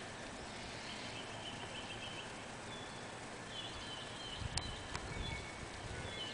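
Quiet outdoor ambience with faint bird chirps, and a sharp click and a few low thumps from about four seconds in.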